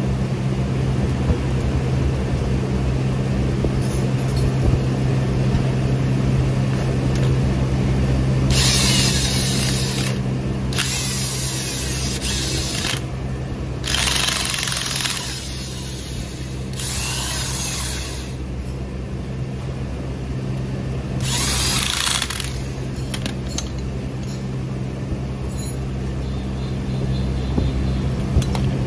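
Cordless impact wrench hammering on the nut at the centre of a car air-conditioning compressor's front clutch, in about five bursts of one to two seconds each, over a steady low hum.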